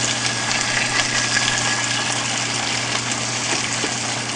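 Steady sizzling of sliced vegetables frying in oil in a frying pan, with faint crackles over a low steady hum.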